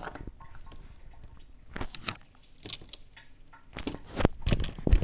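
Lid being screwed onto a stainless-steel Stanley food jar: scattered small clicks and scrapes, then a run of louder knocks and thumps near the end as the jar is handled.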